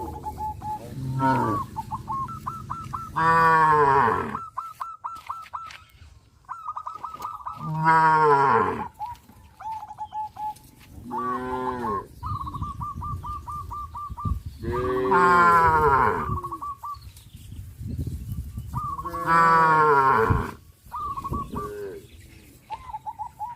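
Cows mooing, five long loud moos that each fall in pitch at the end. Between the moos a quick repeated chirping goes on.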